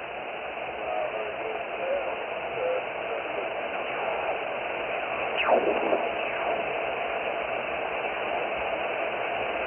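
Static and band noise from a ham radio receiver's speaker as the dial is tuned across a band. A heterodyne whistle sweeps sharply down in pitch about five and a half seconds in.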